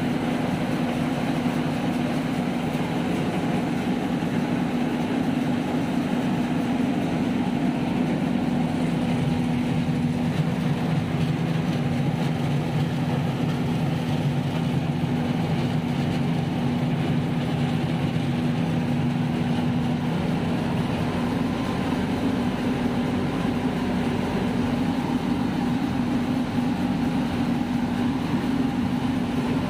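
Tractor-powered rice mill running steadily while milling paddy: the Farmtrac tractor's engine drives the huller and polisher through belts and pulleys, making a continuous, even machine hum.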